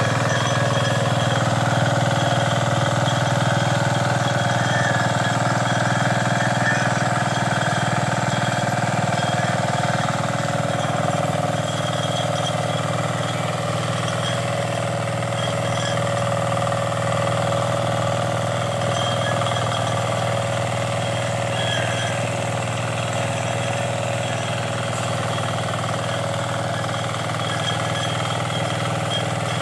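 Engine of a 9 hp power tiller running steadily, with an even pitch and a slight drop in loudness after about ten seconds.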